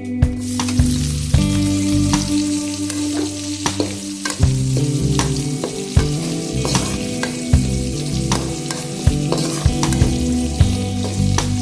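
Food sizzling as it fries in hot oil in a pan, stirred with a spatula that clicks and knocks against the pan many times, with background music underneath.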